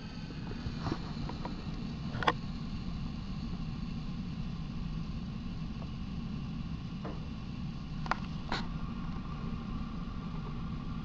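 Bradford White gas water heater's main burner running just after lighting, a steady low roar of the gas flame. A few light clicks sound over it, about two seconds in and twice around eight seconds.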